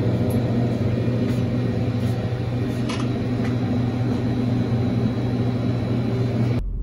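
Steady low mechanical hum with a few faint ticks; shortly before the end it cuts to a deeper low rumble.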